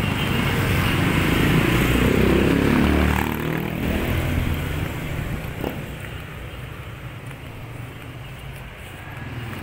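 A motor vehicle's engine passing close by, loudest for the first three seconds and then fading away.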